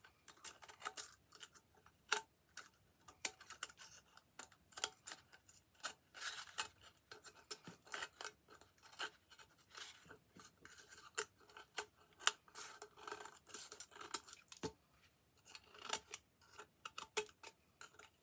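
Scissors snipping through thick, stiff textured paper in a run of short, irregular cuts as it is trimmed.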